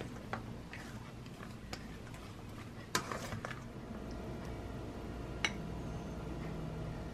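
Faint clinks and scrapes of kitchen utensils against a bowl and plate, with a few sharp clicks, the loudest about three seconds in.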